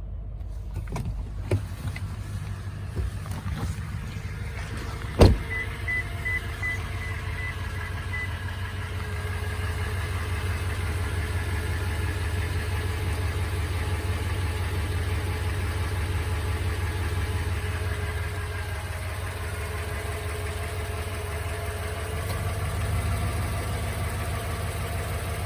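2020 Toyota Tundra's 5.7-litre V8 idling steadily, which the owner puts forward as having a tick/knock sound. About five seconds in there is a sharp thump, followed by a repeating warning chime for about three seconds.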